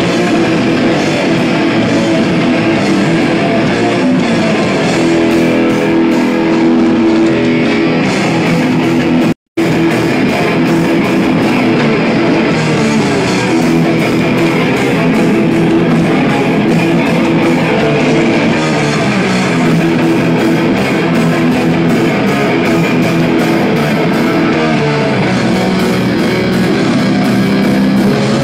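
Hardcore punk band playing live and loud: distorted electric guitars over bass and drums, continuous, cutting out for an instant about nine seconds in.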